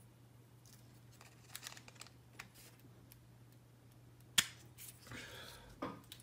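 Small clicks and taps of 3D-printed plastic parts being handled as a gear is pushed onto a motor shaft, with one sharp click about four seconds in. A low steady hum runs underneath.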